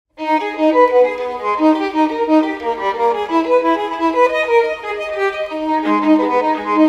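Music: a violin plays a melody of short, changing notes over lower sustained string notes, starting a moment in.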